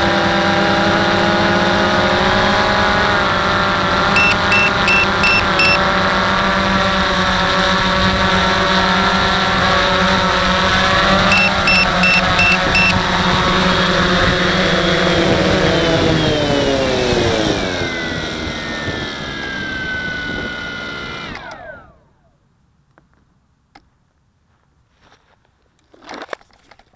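DJI Phantom 1 quadcopter's electric motors and propellers running with a steady multi-toned whine, heard close up from a camera on the aircraft, with two short runs of five high electronic beeps. About two-thirds through, the motors spin down, their pitch falling over several seconds until they stop. Near silence follows, with a few faint rustles.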